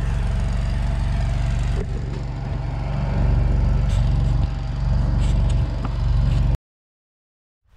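An engine running steadily with a low, even drone, cutting off abruptly about a second before the end.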